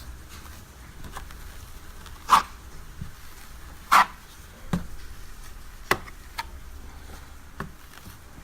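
Metal putty knife working drywall compound: a few short, sharp scrapes and taps, the two loudest about two and four seconds in.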